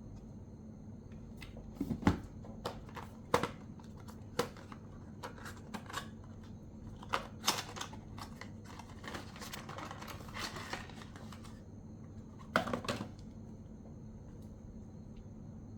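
Handling noises from an unboxing: scattered clicks and taps of small hard parts and packaging being picked up and set down, with a short rustle of packaging around ten seconds in, over a steady low hum.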